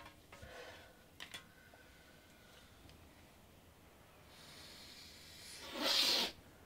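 A person snorting a drug up the nose: one long, hard sniff near the end, with a few small knocks in the first second or so.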